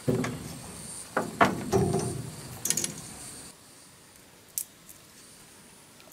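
Knocks, rattles and sharp clicks of fishing gear being handled on a boat deck, loudest in the first two to three seconds. A steady high insect buzz runs beneath it and stops about three and a half seconds in.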